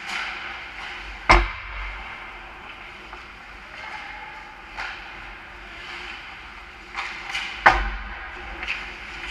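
Ice hockey play close to the goal: sharp cracks of sticks and puck striking, a loud one about a second in and another near the end, with a few lighter knocks between, over a steady scraping of skates on the ice.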